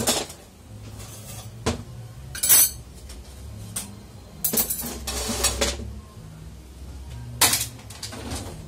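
Steel automatic-transmission parts clinking and knocking as a gear set and shaft are handled on a metal workbench: a handful of sharp knocks, the loudest about two and a half seconds in, and a longer metallic rattle in the middle.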